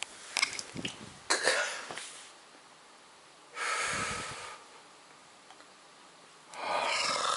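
A person's breathy exhales, three of them a few seconds apart, with a few short clicks near the start.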